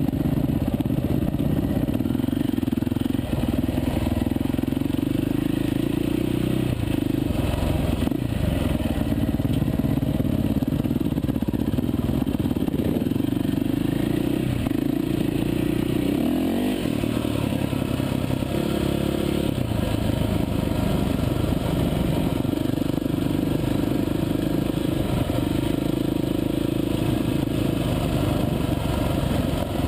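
Dirt bike engine running under way on a rough trail, its note rising and falling as the throttle is opened and closed, heard close up from the rider's own bike.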